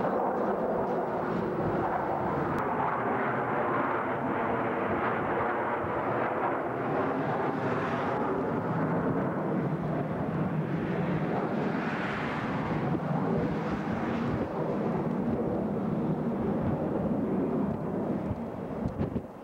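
Jet engine noise from a formation of four F-14 Tomcat fighters passing overhead: a steady rumble that swells with a brighter hiss about two-thirds of the way through, then drops away near the end.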